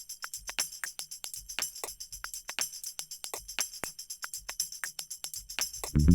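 Background music in a quiet passage: a steady rhythm of light, high percussion hits, about seven a second.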